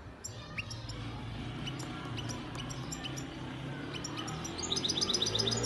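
European goldfinch singing: scattered short, high chirps and clicks, breaking about four and a half seconds in into a fast run of rapid notes, the loudest part of the song.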